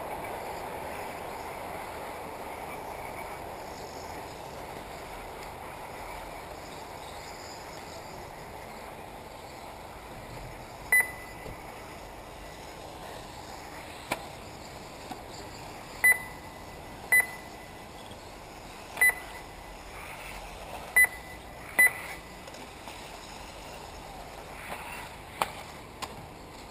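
Short electronic beeps from a lap-counting system at an RC buggy race, each marking a car crossing the timing line. There are about six single beeps in the second half, over a steady background hiss, with a few brief clicks.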